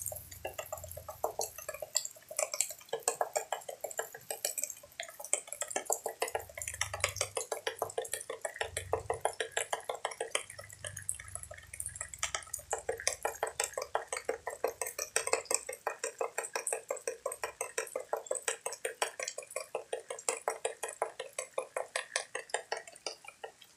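Water dripping fast and steadily onto a hard wet surface: a continuous patter of sharp taps, several a second.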